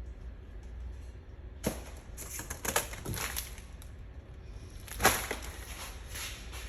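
Several knocks and scraping rustles from boat gear being handled: one about two seconds in, a cluster just after, and the loudest near the five-second mark. A steady low rumble sits underneath.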